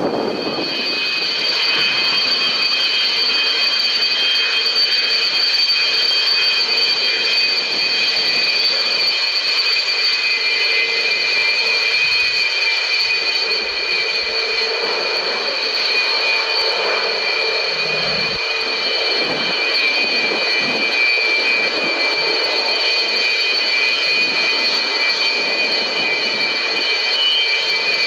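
Jet aircraft engine running with a steady high-pitched whine of several tones over a rushing noise, holding pitch throughout.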